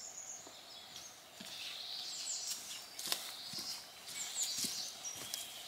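Small birds chirping now and then in a leafless forest, over a faint steady background hiss. A few light taps, the sharpest about three seconds in, from a hiker's footsteps and trekking poles coming down wooden log steps.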